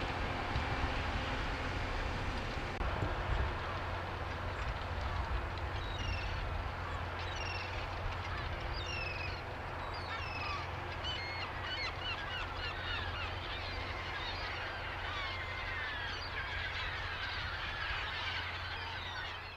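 Case IH Quadtrac 600 tractor running steadily under load while ploughing, its engine a low, even hum. From about six seconds in, a flock of gulls following the plough calls overhead, the calls growing thicker toward the end before everything fades out.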